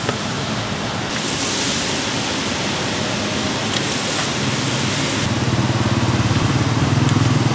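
Battered banana fritters sizzling in a deep tray of hot oil: a steady, rain-like hiss that turns brighter about a second in. A low hum joins in for the last couple of seconds.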